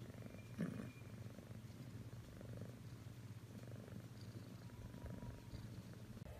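Domestic cat purring steadily while it is scratched under the chin, a low buzzy rumble that swells and eases about once a second. A brief soft knock comes about half a second in.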